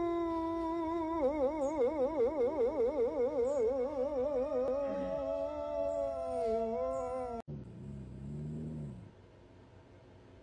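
Boxer dog howling with its head tipped back: one long held note that warbles quickly up and down, then slides lower and stops abruptly about seven seconds in. A shorter, lower sound follows for about a second and a half.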